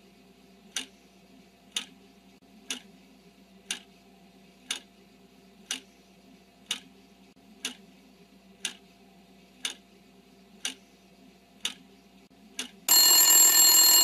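Countdown timer sound effect: a clock ticking about once a second, then a loud alarm bell starting to ring near the end, signalling that time is up.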